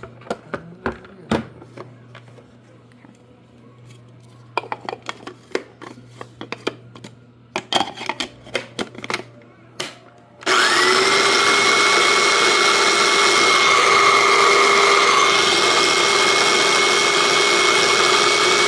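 Several clicks and knocks, then about ten seconds in an electric blender motor starts and runs steadily with a high whine, blending chunky salsa (tomatoes, onion, jalapeño) finer.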